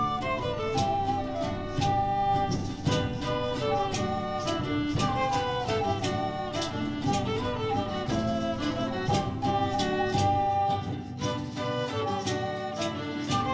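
Background music: a melody line over a steady beat.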